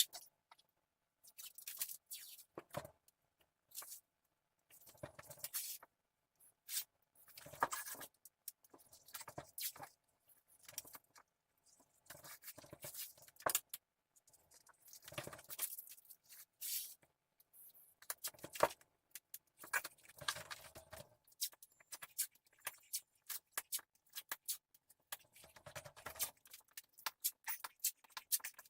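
Painter's tape being pulled off the roll, torn and pressed down onto a prefinished maple floor board: irregular short rasping and scraping sounds with scattered clicks and gaps between them.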